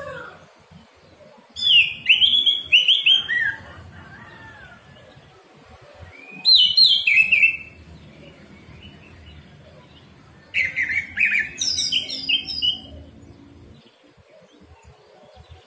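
Orange-headed thrush singing: three separate bursts of quick, varied whistled notes, each lasting one to two seconds, with pauses of a few seconds between them.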